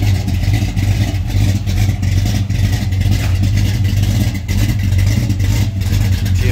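Car engine idling with a deep, steady drone.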